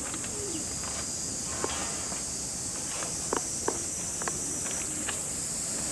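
Footsteps scattered irregularly over a steady, high-pitched insect drone.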